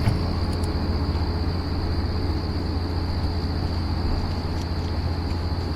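Steady outdoor background rumble with a constant thin high-pitched hiss running over it; no sudden sounds.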